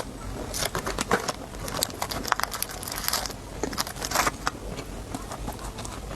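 Plastic snack packaging crinkling and tearing open: a run of irregular sharp crackles and rustles.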